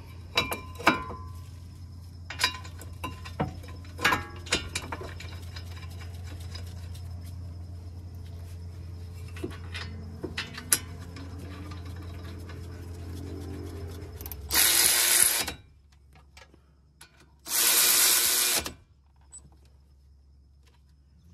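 Metal clinks and knocks as a brake caliper bracket is fitted over the rotor and its bolts are started by hand, then two runs of about a second each from a cordless power tool tightening the caliper bracket bolts.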